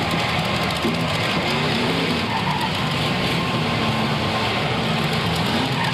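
Demolition-derby car engines running and revving together, a steady mass of engine noise with pitches sliding up and down.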